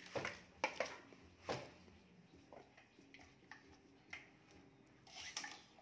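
Wooden hand loom being worked: a quick run of sharp wooden knocks in the first second and a half as the beater packs in the weft and the heddles shift, then softer scraping and ticking, and another knock near the end.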